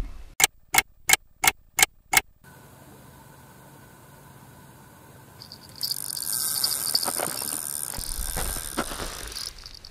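A few sharp clicks in quick succession. Then, from about six seconds in, a fishing reel's line clicker buzzes for several seconds as line is pulled off: a carp taking the bait and running.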